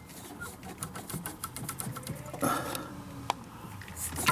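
Piston number 8 of a Cadillac Escalade V8 being rocked side to side by hand in its bore with the head off, giving scattered light clicks and taps and a few short scuffs, with one sharp click about three seconds in. The piston moves slightly, a sign of play in the cylinder that shows zero compression.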